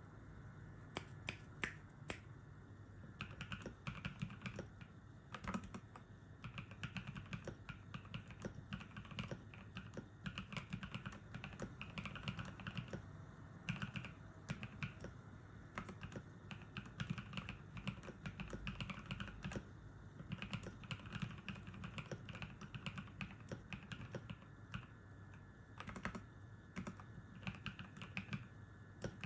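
Typing on a Cyberboard mechanical keyboard with Novelkeys x Kailh Cream linear switches lubed with Krytox 205g0 and milk keycaps: a steady run of key presses, with a short pause near the end.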